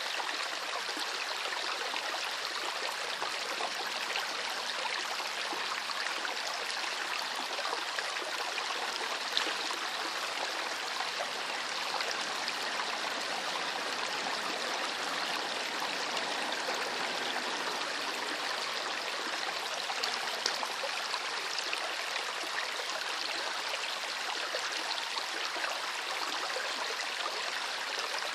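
A small river flowing steadily over stones: a continuous rush of water with small splashes and gurgles.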